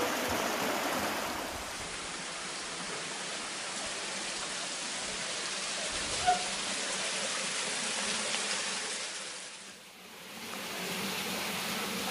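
Small waterfall pouring into a rock pool: a steady rush of falling and splashing water. A short click sounds about six seconds in, and the water sound dips briefly near ten seconds before returning.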